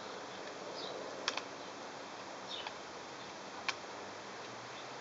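Small Phillips screwdriver turning a screw out of the plastic battery casing of a Solio Classic solar charger: a few faint, sharp clicks and ticks, scattered about a second apart, over a faint steady hiss.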